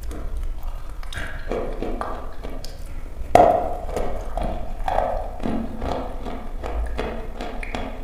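Dry chalk lump being bitten and chewed close to a lapel microphone: crisp crunching and crackling, with the loudest crack of a bite about three and a half seconds in, then a run of smaller crunches as it is chewed.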